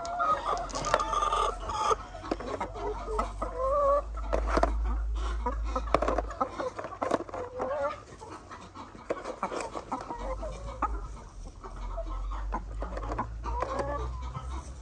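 Laying hens clucking and calling in short bursts, with frequent light clicks and knocks close by as eggs are set into an egg crate.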